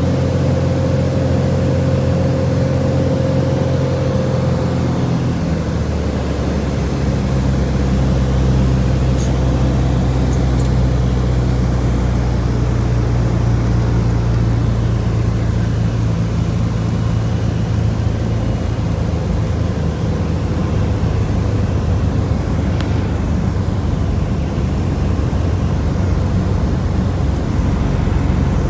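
Single-engine light plane's piston engine and propeller drone steadily, heard from inside the cabin, with a shift in the engine's tone about five seconds in.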